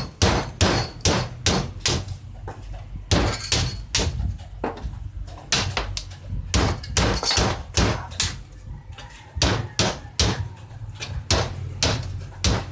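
Metal hammering on a steel brake shoe clamped in a bench vise, as the old lining is knocked off: sharp blows about two to three a second, with a couple of short pauses.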